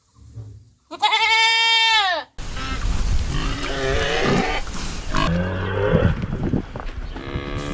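Farm animal calls cut together from several clips: a loud goat bleat about a second long that rises then falls, then a few seconds of grunting and lower calls over background noise.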